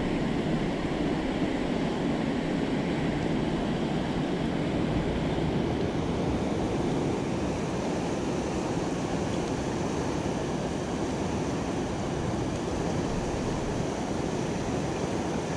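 River water rushing over shallow rapids: a steady, unbroken rush.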